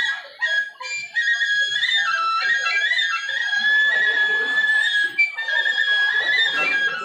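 Balinese gamelan music, with a bamboo suling flute carrying a held melody that steps from note to note over the ensemble; the music fills out about a second in.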